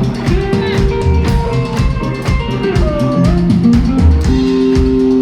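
Live blues-rock band playing loud: electric guitar with notes sliding in pitch over a pounding drum kit.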